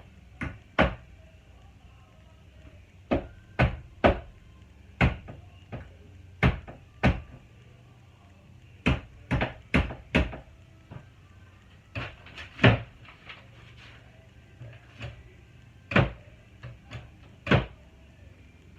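A series of sharp knocks and clacks at irregular spacing, roughly one a second, some in quick pairs or threes.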